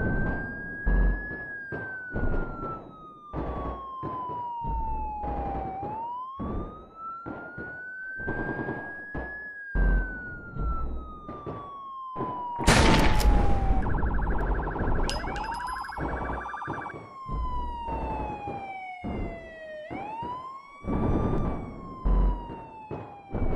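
A wailing siren that slowly falls and then quickly rises again, over steady drum hits with deep bass, as in a music track; a harsh buzzing tone comes in about halfway through.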